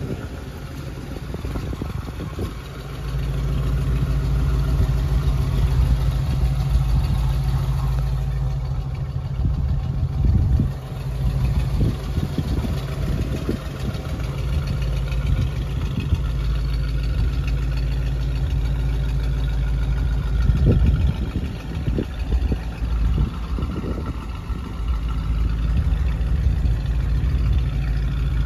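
1973 Ford Bronco's 302 V8 with dual exhaust idling steadily, with a few short low surges about ten seconds in and again past twenty seconds.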